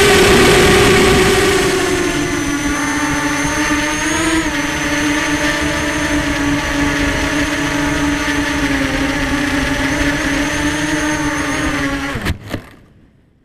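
Electric motors of a small FPV racing quadcopter, heard through its onboard camera, whining steadily. The pitch drops a little about two seconds in as the craft comes down, then holds while it idles on the ground. The whine cuts off abruptly near the end as the motors are stopped.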